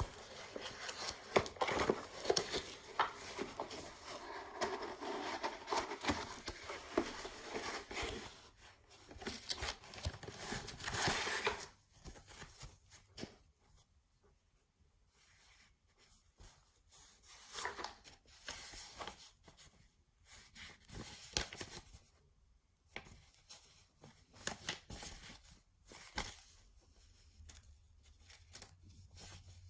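Toy blaster's packaging being opened by hand: irregular tearing and rustling of cardboard and plastic, busy for the first dozen seconds, then in shorter, sparser bursts.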